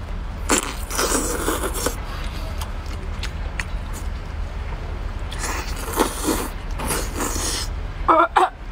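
Eating sounds: slurping and chewing as sauced scallop meat is sucked off the half shell, with chopsticks scraping the shell, in two spells. A steady low rumble lies underneath, and there is a short vocal sound near the end.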